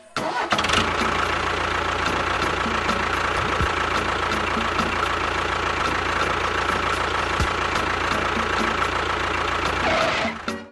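Small motor running steadily for about ten seconds, starting abruptly and cutting off abruptly near the end.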